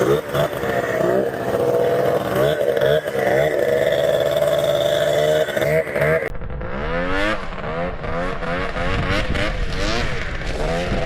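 Two-stroke snowmobile engine revving up and down repeatedly. About six seconds in, the sound changes abruptly: it becomes duller, and the engine pitch rises and falls in quick sweeps.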